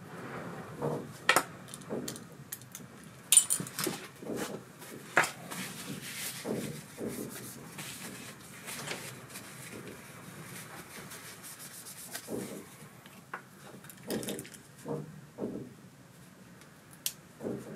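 Parts of an ABU Ambassadeur 4600 CA baitcasting reel being handled during disassembly, making irregular light clicks and rubbing with a few sharper knocks.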